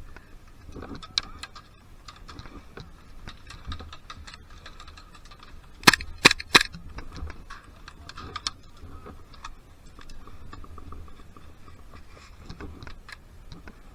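High-pressure-air airsoft rifle with a PolarStar Fusion engine firing three sharp shots about a third of a second apart, near the middle. Fainter scattered clicks and pops of airsoft fire come before and after.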